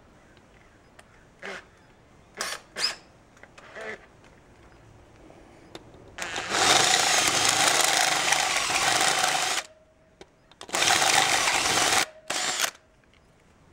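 Drill with a step bit (unibit) cutting through the metal end housing of a vacuum pump's motor, enlarging a starter hole. A few brief bursts come first, then a long cut of about three seconds, and two shorter cuts near the end.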